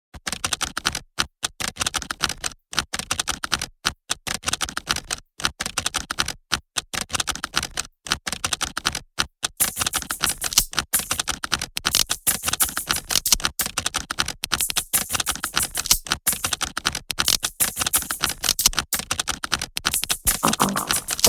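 Glitchy electronic-music passage made of dense, irregular clicking and crackling like rapid typing, cut by frequent brief dropouts, with no bass or beat until it returns right at the end.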